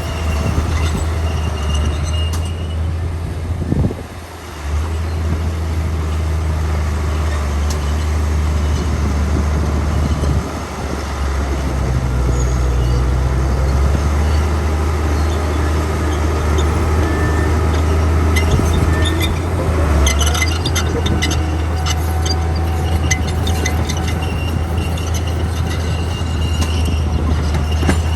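Diesel engines of heavy earthmoving machinery running steadily with a deep rumble, dipping briefly about four seconds in and again near ten seconds. Light metallic clanks and rattles come about two-thirds of the way through.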